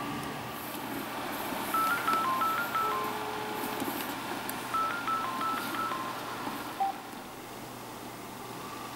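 Incoming-call ring signal from a Sena SMH10R Bluetooth motorcycle intercom headset: a quick melody of short high beeps, played twice about three seconds apart, followed by a single lower beep near the end.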